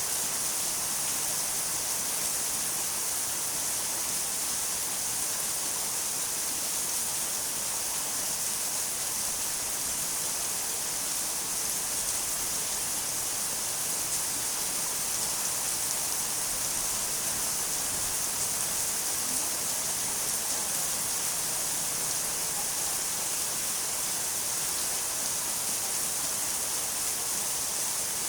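Steady, unbroken hiss of rain, bright and even throughout, with no distinct drops, thunder or other events standing out.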